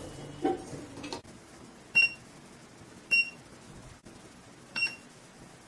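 Mechanic W08 mini spot welder firing weld pulses through its pen onto a nickel strip: three short high beeps, each with a click, about a second to a second and a half apart. A soft knock comes near the start.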